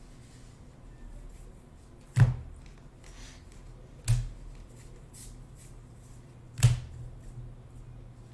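Three sharp knocks about two seconds apart, the first and last loudest, with faint clicks and rustles of trading cards and packs being handled in between.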